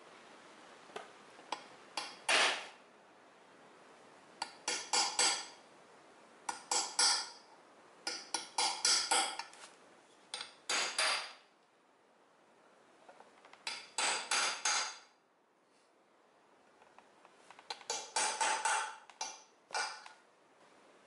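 Ball-peen hammer striking a steel pin punch to drive the old front crankshaft seal out of a 4.0 straight-six's timing cover: runs of quick, sharp metallic taps, about seven of them, with short pauses between.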